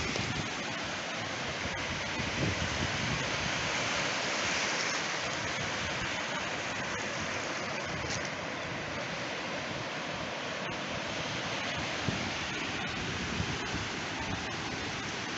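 Steady rushing noise of surf breaking on a Gulf beach, with wind buffeting the microphone.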